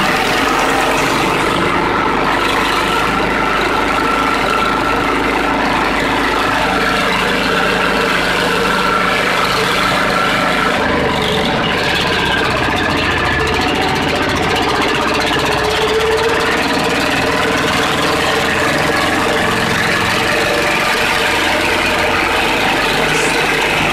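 Valpadana 4RM 300 articulated compact tractor's engine running steadily while the tractor drives along a rough dirt track, heard from the driver's seat. The engine note shifts slightly about halfway through.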